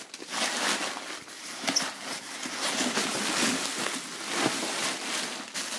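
Crumpled newspaper and bubble-wrap packing rustling and crinkling as hands rummage through a cardboard box, a continuous rough rustle with many small crackles.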